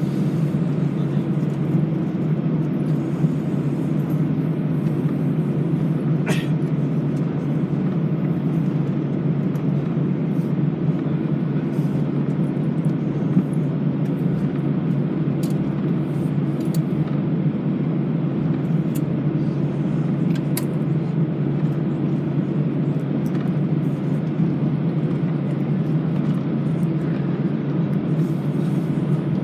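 Steady low cabin rumble of an Airbus A320 on the ground before take-off, engines at low power as it taxis, with a few faint clicks and rattles now and then.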